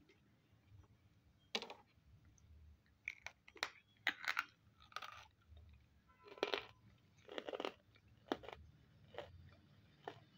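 A person biting and chewing pieces of half-roasted nakumat (edible baked clay): a dozen or so short, dry, crisp crunches one after another, loudest around four seconds in.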